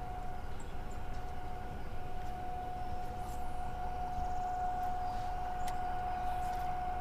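A steady high whine from a small electric motor, one held tone with a fainter one above it, unchanging in pitch; a few faint high chirps now and then.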